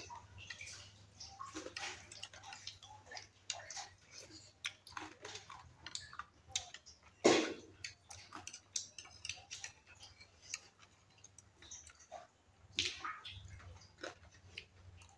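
Eating sounds: chewing, with metal forks and spoons clicking and scraping on a ceramic plate in many short, irregular ticks. A louder clatter comes about seven seconds in, and a smaller one near thirteen seconds.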